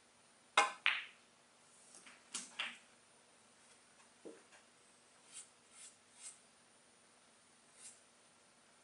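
Snooker shot: the cue tip strikes the cue ball with a sharp click, followed a third of a second later by a second sharp click of ball on ball. A cluster of quicker clicks follows about two seconds in, then a few fainter taps and knocks.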